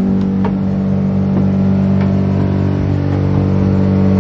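Milk vending machine's electric motor or cooling compressor running with a steady low hum, a few even tones held constant and growing slightly louder.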